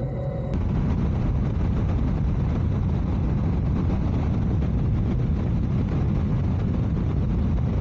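Wind buffeting a motorcycle rider's clip-on wireless microphone while riding, a dense steady low rumble with engine and road noise underneath. It starts abruptly about half a second in.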